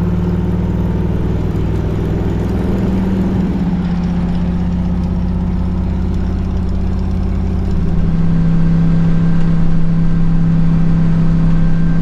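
Vehicle engine running steadily while driving slowly; about eight seconds in it gets louder and its pitch shifts.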